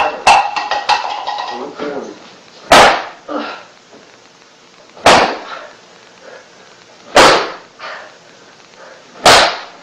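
Paddle striking a person's backside in a corporal punishment paddling: four loud smacks about two seconds apart, each followed by a short cry. A voice is heard briefly in the first two seconds.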